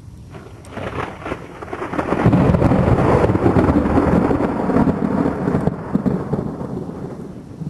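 Thunder rumbling: it builds over the first two seconds into a long, loud roll, then slowly fades.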